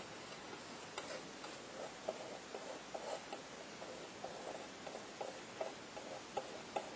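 Palette knife dabbing paint onto a stretched canvas: faint, irregular light taps, about two or three a second.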